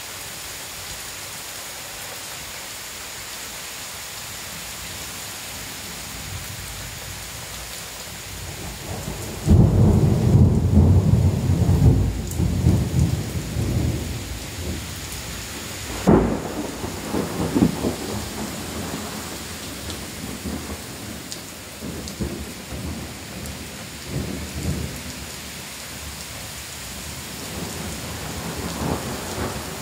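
Heavy rain falling steadily in a thunderstorm. About nine seconds in, a loud thunderclap breaks in and rumbles for several seconds. About halfway through a sharp crack of thunder is followed by more rolling rumbles, which die back to the rain. Thunder starts building again near the end.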